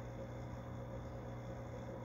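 Aquarium equipment running with a steady low hum and a faint hiss.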